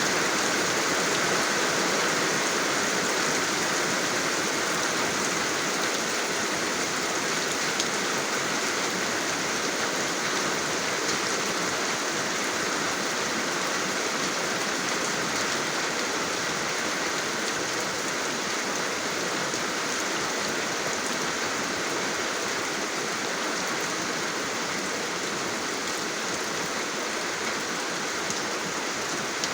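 Steady rain falling, a dense even hiss with no separate drops standing out. It eases a little in loudness over the stretch.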